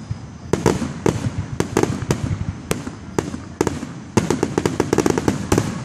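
Fireworks finale: rapid, overlapping aerial shell bursts, sharp cracks and booms coming in clusters, thickening into a near-continuous barrage about four seconds in.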